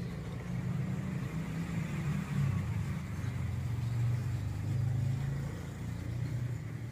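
A low, steady motor hum like a running engine, its pitch dropping a little about two and a half seconds in.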